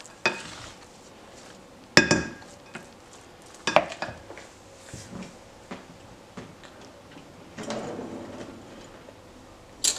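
A wooden spoon stirring a grain salad in a ceramic mixing bowl: soft scraping, with a few sharp knocks of spoon against bowl, the loudest at about two seconds in and just before four seconds.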